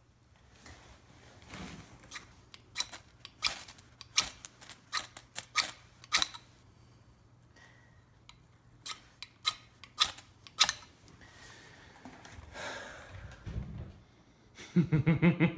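The 90-degree spine of an Ontario SK5 Blackbird knife scraped down a small ferrocerium fire steel to throw sparks: a string of short rasping strikes, a pause of about two seconds, then four more. A man's voice comes in near the end.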